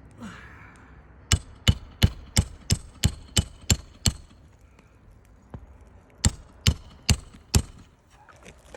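Roofing hammer driving a nail through an asphalt shingle: eight quick blows, about three a second, then a pause and four more.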